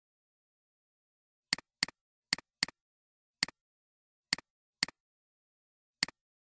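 Eight computer mouse clicks at uneven spacing, each a sharp double tick of the button pressing and releasing.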